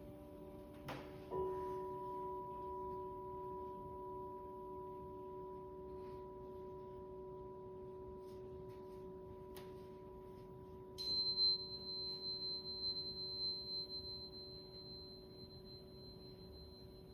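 A struck crystal singing bowl rings with a long, steady, low tone. Near 11 s a small high chime is struck, and its ringing pulses as it slowly fades over the held bowl tone.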